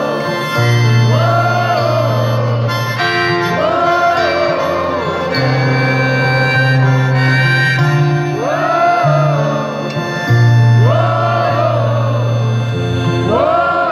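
Live acoustic band music: a melodic phrase with bending pitch repeats about every three seconds over a steady bass line, an instrumental stretch between sung verses.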